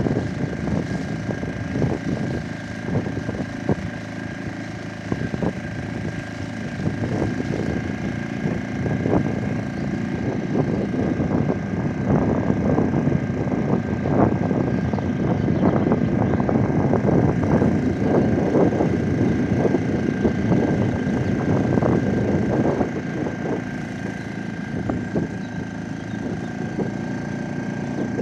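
Small boat motor running steadily as an inflatable boat moves across calm water, with a steady high tone and uneven wind noise on the microphone.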